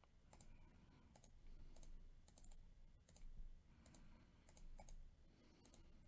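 Faint clicks of a computer mouse and keyboard, many in quick pairs, about one or two a second, over near silence.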